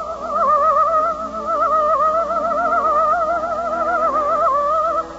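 Orchestral underscore: a single high, sustained melody line with a wide, quick vibrato, played over soft accompaniment.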